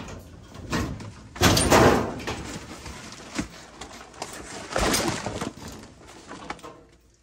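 Hand tools scraping and knocking against the base of an old oil-fired furnace cabinet as its board panel is worked loose, in irregular bouts that are loudest about a second and a half in and again near five seconds.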